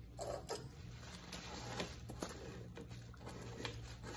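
Faint handling noises: a few light taps and rustles as small metal vacuum-therapy roller attachments are picked up and set down by hand, over a low steady hum.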